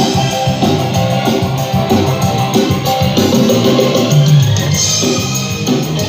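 Loud music with a drum-kit beat and bass, played over a line-array PA system during a sound check.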